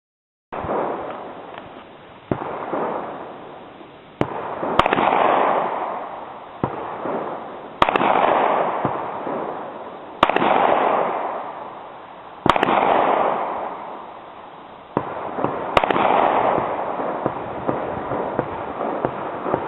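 Gunshots on a shooting range, about ten of them at uneven gaps of one to three seconds, each sharp crack trailing off in a long echo. Some cracks are louder than others, and the sound starts suddenly about half a second in.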